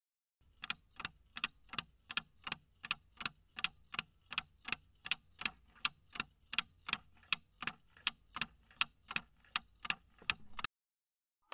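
Clock-ticking sound effect for a quiz countdown timer: an even run of sharp ticks, about three a second, stopping shortly before the end.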